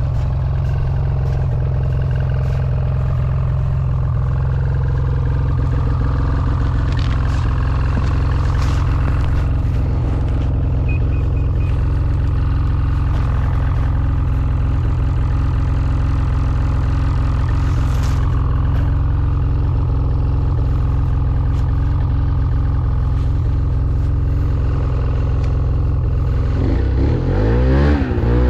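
Snowmobile engine idling steadily, with a few light clicks. Near the end it is revved, its pitch rising and falling.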